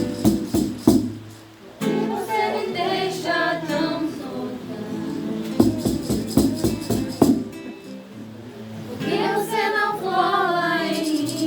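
A song: a voice singing a wordless or unclear melodic line over strummed string accompaniment.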